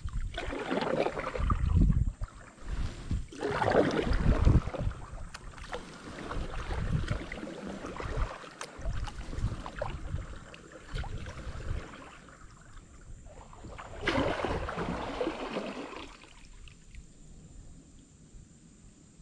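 Double-bladed kayak paddle dipping and pulling through calm river water. Three louder splashing strokes stand out, with quieter water sounds between them.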